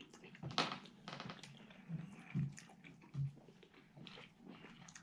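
A person chewing and eating a forkful of microwave chicken-and-broccoli meal close to the microphone: irregular wet mouth clicks with a few soft low thumps.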